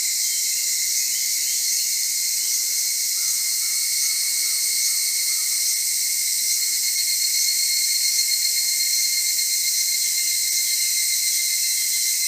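A chorus of higurashi, the evening cicada Tanna japonensis, calling: a steady, high ringing with faint short phrases repeating over it.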